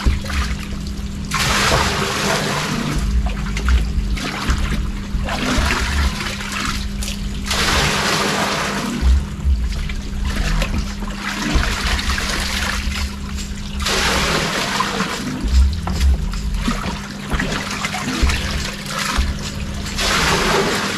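Water poured from a small bucket into a plastic drum, splashing in several separate pours a few seconds apart, over a steady low hum.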